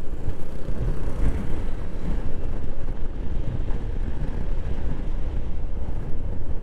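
Steady wind rumble on the rider's microphone while a Honda PCX scooter travels at road speed, with the scooter's engine and tyre noise underneath.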